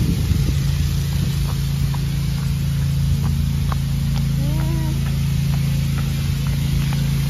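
A steady low mechanical hum at one unchanging pitch, with a short rising-and-falling tone about halfway through.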